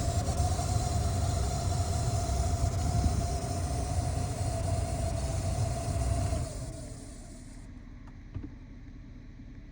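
2013 Chrysler 300's heater running and making an unexplained noise: a steady whine over rushing air and a low rumble. About two thirds of the way in the sound cuts off, and a faint click follows.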